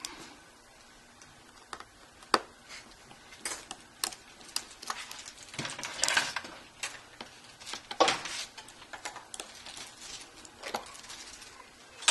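Light clicks and short scrapes of plastic pry tools and parts being handled around an opened tablet: a dozen or so scattered sharp clicks with brief scraping in between.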